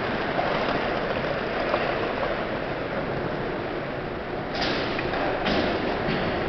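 Steady roar of traffic from the overhead roadway, with three short sharp knocks near the end, typical of BMX bikes hitting the brick pavement.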